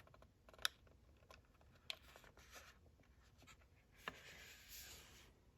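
Faint handling of a knife's retail packaging: a few small clicks or taps, then a brief soft rustle about four seconds in.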